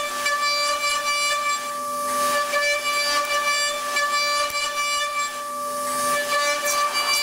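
CNC metal lathe running: a steady, high-pitched whine over a hiss, with a few brief swells in the noise.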